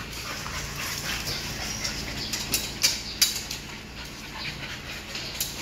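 American bully puppies playing and scuffling on a concrete floor, with a few sharp clicks about halfway through and another near the end.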